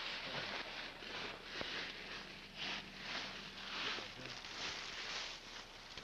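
Footsteps scuffing on a rocky trail with clothing rustle, a soft scrape roughly twice a second.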